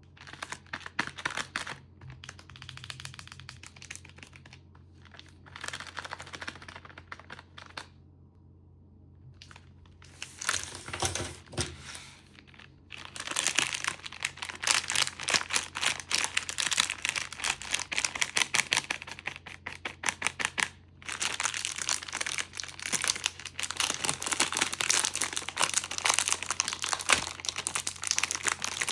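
Plastic candy packaging crinkling as it is handled and opened: short bouts with pauses at first, then nearly continuous crinkling through the second half.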